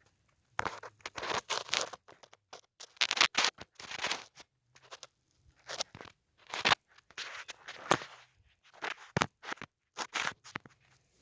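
Briggs & Stratton 550EX 140cc lawnmower engine being pull-started over and over, a series of irregular scraping pulls of the recoil starter with no engine catching: the engine cranks but won't fire.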